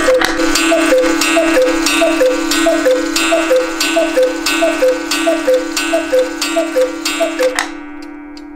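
Black Forest cuckoo clock calling: a falling two-note "cu-ckoo" repeated quickly over a dozen times over a steady low drone, cutting off about a second before the end and leaving a faint ringing.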